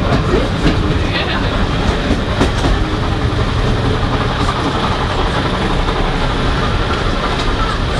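Passenger railway carriage running at speed, heard from inside: a steady rumble of the wheels on the rails with a few light clicks.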